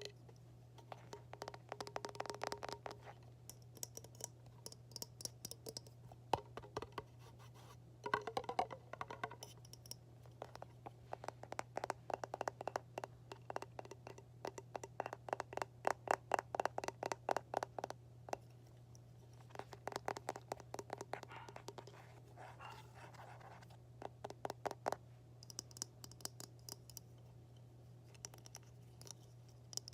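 Fingers and fingernails tapping and scratching on hard objects in quick runs of taps, some of the objects ringing briefly with a pitch, over a steady low hum.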